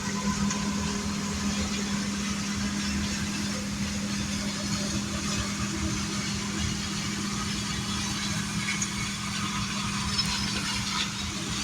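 John Deere combine running steadily while harvesting soybeans, its engine giving a constant hum over an even rushing noise.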